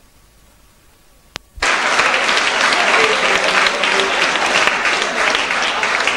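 A short click, then about a second and a half in, sudden applause from a crowd in a hall, many hands clapping steadily.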